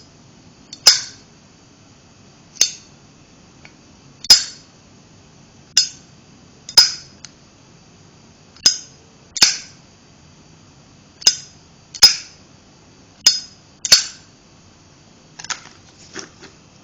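A 1999 National Zippo Day Zippo lighter with a licorice finish, its lid flicked open and snapped shut over and over: about a dozen sharp metallic clicks, each with a short bright ring, spaced about a second apart. A few quieter ticks come near the end.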